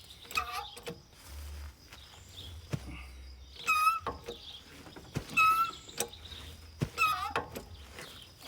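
A bird calling outdoors: four short, harsh calls spaced a second or two apart, with a few sharp knocks in between.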